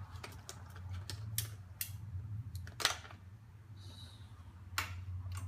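Scattered light clicks and taps from handling small repair tools and phone parts during a smartphone teardown, a few irregular clicks a second apart, over a steady low hum.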